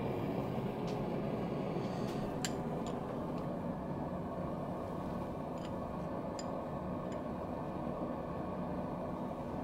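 Steady rushing noise of a running forge, with a few faint, sharp metallic clicks.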